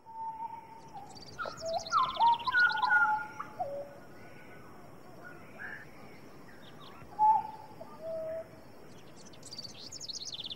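Rainforest birds calling: clear whistled notes, some stepping up or down in pitch, loudest between about two and three seconds in, with two bursts of fast high trills, one early and one near the end, over a steady faint high tone.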